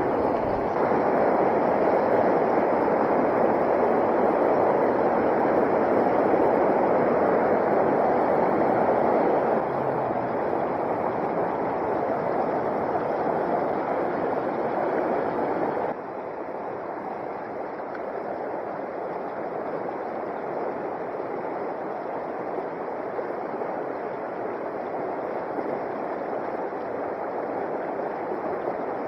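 Rushing creek water, a steady hiss that drops in level suddenly about ten seconds in and again about sixteen seconds in.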